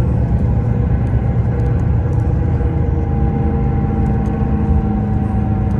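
A large vehicle's engine running steadily, a low rumble heard from on board, with a faint whine that drifts slowly in pitch.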